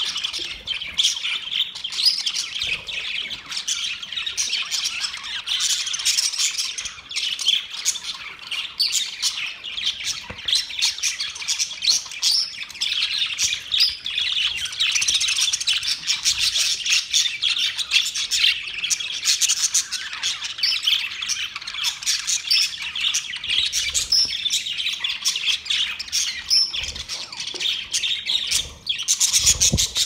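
A flock of budgerigars chattering without pause, with many high calls overlapping.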